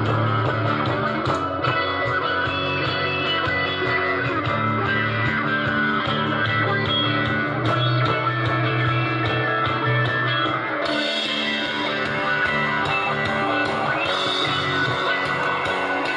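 Guitar-led music playing through a small speaker driven by an LA4440 amplifier board under test. The sound gets brighter about two-thirds of the way in.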